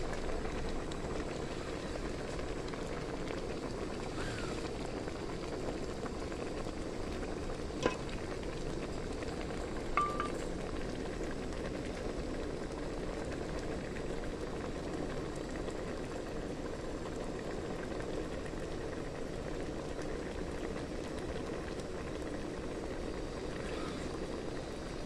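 Mushroom curry with young tamarind leaves boiling steadily in a large metal pot, an even bubbling. A sharp tick sounds about eight seconds in and another about ten seconds in.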